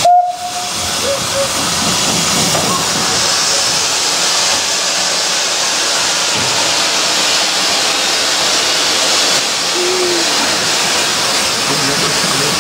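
Steam venting from a steam tank locomotive close by: a loud, steady hiss.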